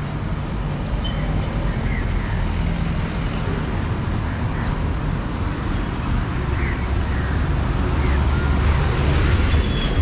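Street traffic: a steady low rumble of road vehicles, with scattered short high chirps and a thin high whine from about six and a half seconds in until about nine.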